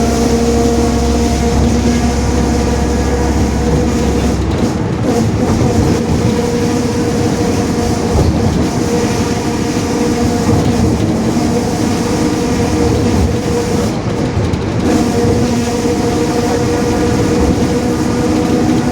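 Mercedes-Benz OF-1721 city bus under way, its diesel engine and driveline running with a steady whine from the differential that the title calls growling, a sign of a noisy rear axle. The whine is strongest at first, eases a few seconds in as the deep engine rumble drops, and comes back strongly near the end.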